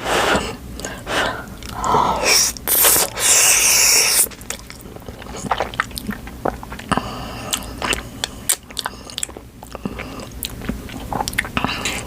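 Close-miked eating: a loud breathy rush of air for about a second and a half, around three seconds in, then steady chewing with many short wet mouth clicks.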